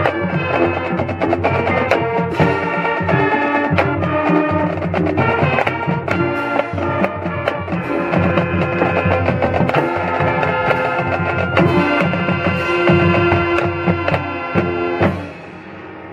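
A high school marching band playing full ensemble, wind instruments over drums and front-ensemble percussion. The music stops abruptly near the end, leaving a quieter tail.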